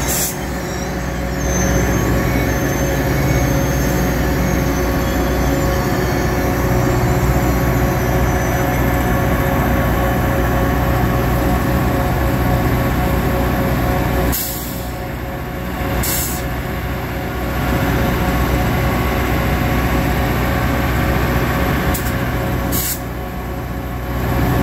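Caltrain F40PH diesel locomotive idling with a steady engine drone while the train stands at the platform. A few brief sharp sounds come about two-thirds of the way through and again near the end.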